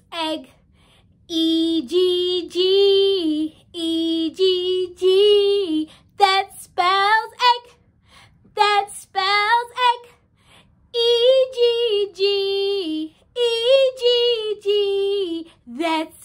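A woman singing a children's song unaccompanied in a high, bright voice, in short phrases of held notes separated by brief pauses.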